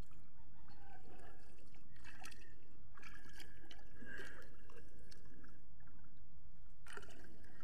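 River water running and sloshing steadily, with a few brief faint knocks.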